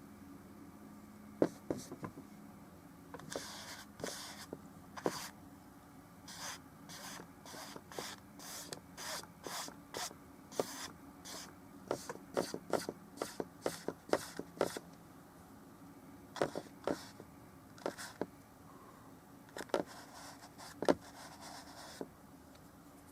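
Short brush strokes and dabs of oil paint on canvas: a string of quick scrapes and taps, fastest in a run a little past the middle.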